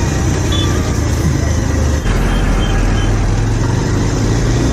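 Bajaj Pulsar 180's single-cylinder engine running at low road speed, with wind noise on the microphone and traffic around it.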